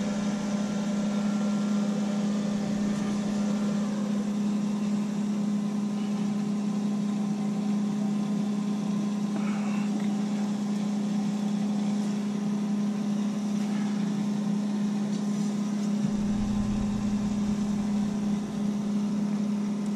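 Boat's air conditioning unit running with a steady, even hum. A deeper rumble joins near the end.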